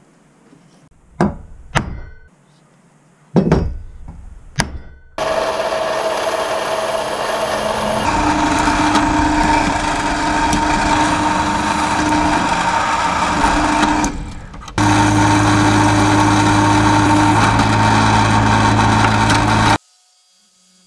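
A hammer strikes a centre punch on steel bar four times. A bench drill press then runs and drills the steel for about nine seconds. After a brief break, an angle grinder cuts steel for about five seconds and stops abruptly.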